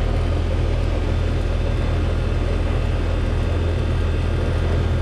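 2004 Trane XL14i 2-ton central air conditioner running steadily. Its Climatuff reciprocating compressor gives a strong, even low hum under the rushing air of the condenser fan.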